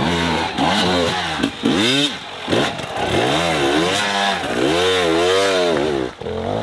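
Two-stroke enduro motorcycle engine revved in repeated throttle bursts as the bike climbs over rocks. Its pitch rises and falls about once a second, with a brief drop-off about two seconds in and again near the end.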